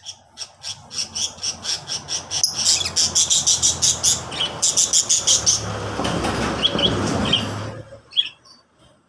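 Lovebirds chattering in a rapid string of short, high chirps, about five a second, with a rushing noise that swells in the second half. It all stops about eight seconds in.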